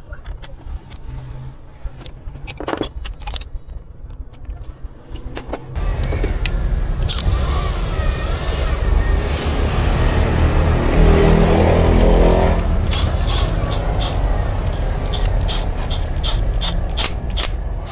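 Light metallic clinks of a wrench on a starter motor's terminal. About six seconds in, a steady rush of outdoor vehicle noise begins and peaks about halfway. Quick metallic tool clicks follow near the end.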